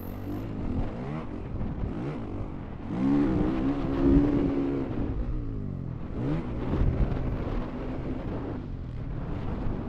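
Honda CRF450R's single-cylinder four-stroke engine revving hard on a motocross track, the pitch climbing sharply about three seconds in, holding high, easing off, then climbing again after six seconds as the rider works the throttle.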